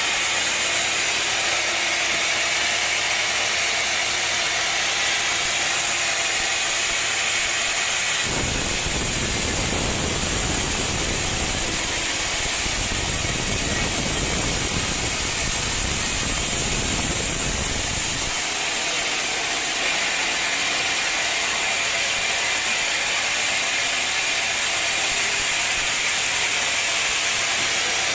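Sawmill machinery running: a steady hissing mechanical noise, with a deeper rumble added from about 8 to 18 seconds in.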